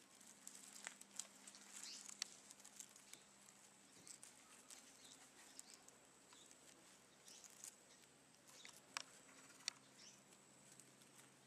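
Faint, scattered crackling and ticking of dry leaf litter as a dung beetle rolls its dung ball over it, with a few sharper clicks, two of them near the end.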